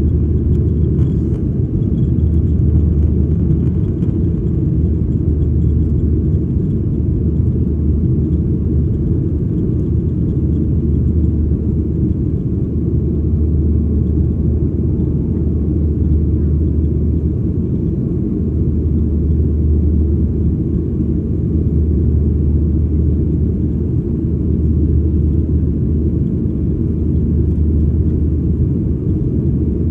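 Steady low cabin drone of a Boeing 737-800 in flight shortly after takeoff: its two CFM56-7B engines and the airflow, heard inside the cabin at a window seat by the wing. A deep hum swells and eases slightly every few seconds.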